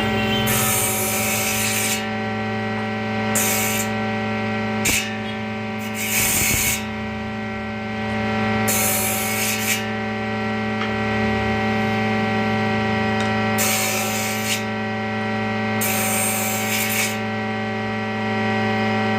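Woodworking tool at work: a steady motor hum runs throughout, broken by about eight short, hissing bursts of wood being worked, each up to about a second long.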